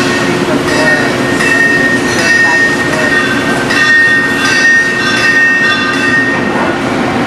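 Milling machine running and cutting metal, making a steady hum with a high squeal that comes and goes every second or so as the cutter works the part.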